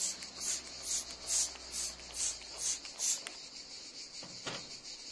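Insects singing: a steady high buzz with louder pulses about twice a second that stop about three seconds in. A single soft thump near the end.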